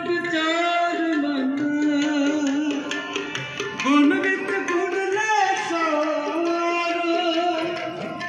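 Sikh kirtan: a voice singing a devotional hymn in long held notes that slide from one to the next, over tabla accompaniment.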